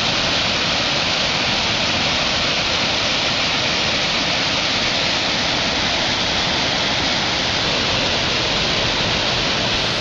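Turtleback Falls rushing: a steady, even roar of falling water.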